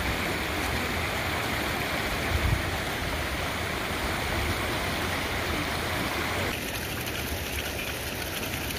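Shallow stream running over stones, a steady rush of water. About six and a half seconds in it changes abruptly to a thinner, hissier rush of water from a steaming hot-spring outflow. A brief low thump comes about two and a half seconds in.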